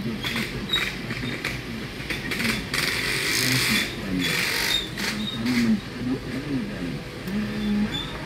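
Car driving slowly along a rough paved village road, heard from inside the cabin: steady engine and tyre noise, with short knocks and rattles every second or so as it goes over bumps.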